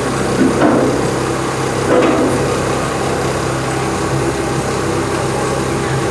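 An engine or motor running steadily with a low hum, with a couple of short knocks about half a second and two seconds in.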